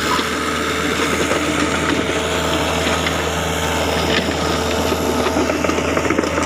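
Diesel engine running at a steady speed, a constant low drone that neither rises nor falls.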